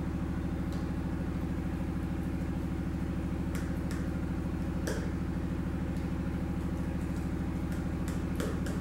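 Steady low machine hum running throughout, with a few faint clicks of a knife cutting through a set maize-flour slab against a steel plate.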